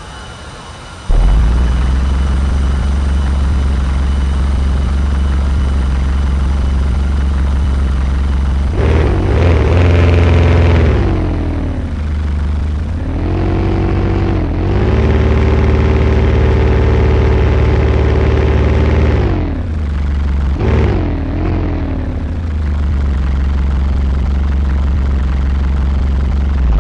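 Aftermarket car sound system in a Volkswagen Saveiro playing bass-heavy music very loud through its subwoofers: a deep steady bass comes in suddenly about a second in, with sliding, pitch-bending tones over it several times.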